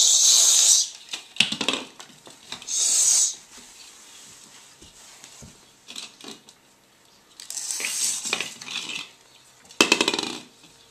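Christmas tree branches rustling and ornaments clinking as they are handled, in several short hissy bursts with small clicks and light ringing.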